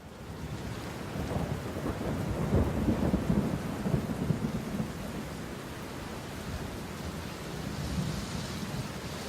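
Low, uneven rumble of thunder, loudest about two to four seconds in, over a steady hiss like falling rain.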